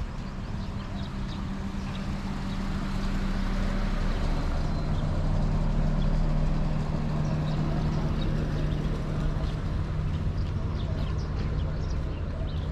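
An engine running nearby with a steady low hum that shifts slightly lower in pitch about four seconds in. It grows louder toward the middle and then eases off.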